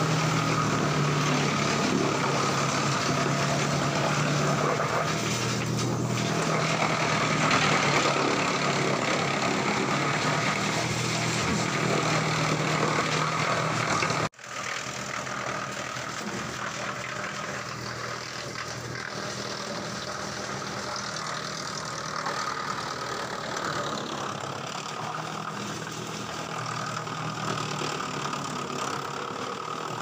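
Electric-motor-driven drum wood chipper running while chipping sawmill waste wood fed into its hopper: a steady machine hum over a continuous rushing noise. The sound drops out for an instant about 14 seconds in and then carries on quieter.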